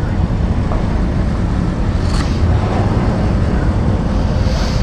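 Several motorcycle engines running close by, a steady low rumble.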